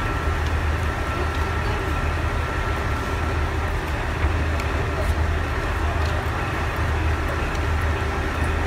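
Kiha 40 series diesel railcar standing at the platform with its engine idling: a steady low hum.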